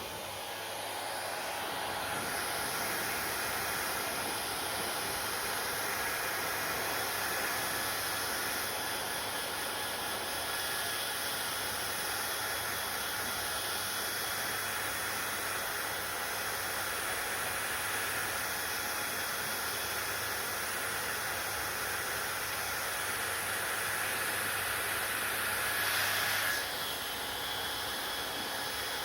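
Hair dryer blowing steadily, a rushing noise that grows a little louder about two seconds in, swells briefly near the end and then drops slightly.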